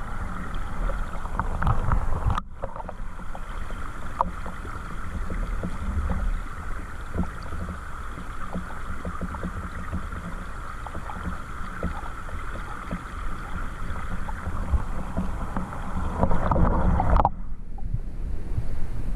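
Flowing water of a small stream heard underwater: a muffled, steady rush with scattered faint ticks. It breaks off abruptly about two and a half seconds in, and the sound changes abruptly again near the end.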